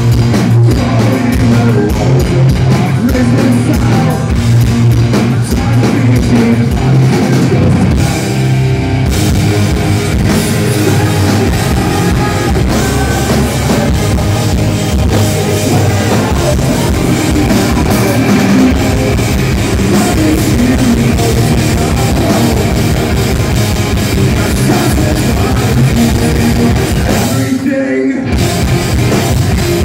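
Rock band playing live and loud: electric guitars, bass guitar and a drum kit.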